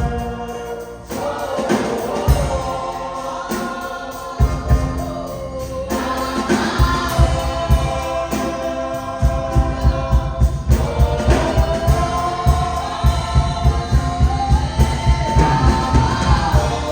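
Choir singing a slow gospel worship song with instrumental backing; a steady drum beat of about two strokes a second comes in about halfway.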